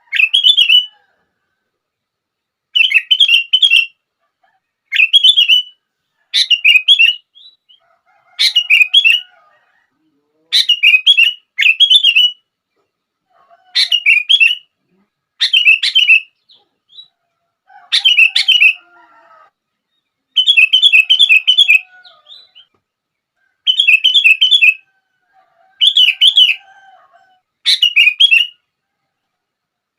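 Sooty-headed bulbul singing short, bubbly whistled phrases, one about every two seconds with silent gaps between them.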